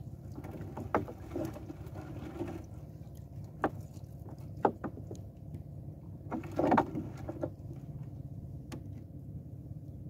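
Water lapping against a wooden outrigger boat as a fishing net is hauled aboard by hand, with scattered knocks against the hull. The loudest knock is a short clatter about two-thirds of the way through.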